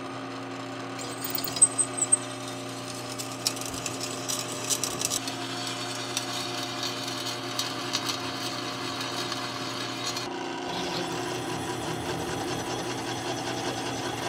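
Drill press running, its twist bit cutting through forged iron bar stock to drill screw holes through a hook and back plate, with a steady motor hum under scratchy cutting noise. The sound shifts about ten seconds in as the cut changes.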